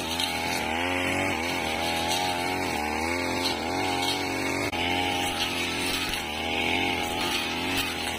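Backpack brush cutter engine running at high speed while its blade cuts through grass and weeds; the engine note wavers up and down as the blade bites and is swung back and forth.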